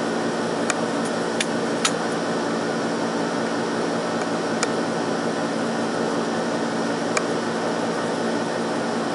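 Steady hum and hiss of background machine noise, with a few light sharp clicks, most of them in the first two seconds.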